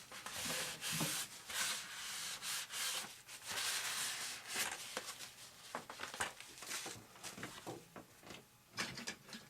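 Hands handling and rubbing down tape on a model airplane's wing: a run of irregular, scratchy rubbing strokes.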